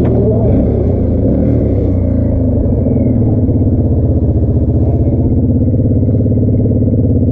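ATV engine running under way, its note wavering for the first couple of seconds and then holding steady.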